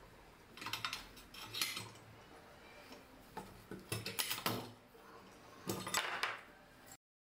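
Metal clinks and knocks as a small bench vise is handled against an old cast-iron charcoal iron, coming in several short clusters and cutting off abruptly near the end.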